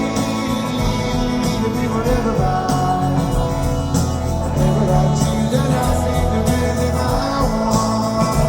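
Rock band playing live, with singing over the band and regular drum and cymbal hits.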